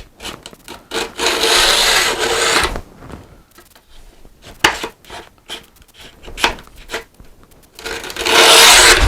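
Two long scraping strokes of a hand tool drawn along the edge of a wooden drawer front, trimming the iron-on edge banding flush, with light knocks and clicks between the strokes.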